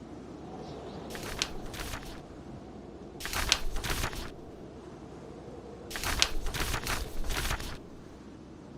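Book pages turning: three crisp paper rustles, about a second in, at about three seconds and a longer one around six seconds in. Under them a steady low rush of blizzard wind and fire.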